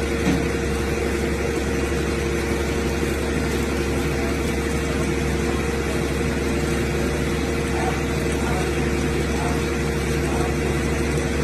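Vehicle engine running steadily, a constant drone, while it hauls a submerged pickup truck up a boat ramp on a line.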